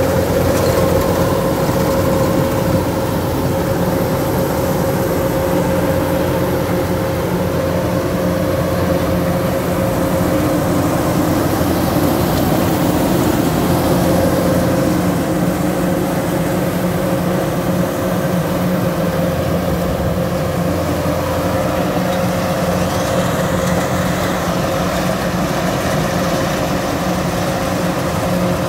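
Kubota DC-105X rice combine harvester running steadily under load, cutting and threshing rice: an even engine rumble with a steady whine held throughout.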